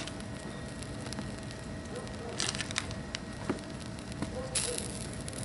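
Water poured onto a length of 550 fire cord in two short hissing splashes, over a steady outdoor background with small scattered crackles.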